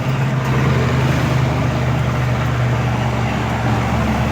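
Suzuki F6A three-cylinder engine of a multicab running steadily under load while climbing a steep hill, with road noise; the engine has newly replaced fuel injectors. The engine note shifts slightly about half a second in.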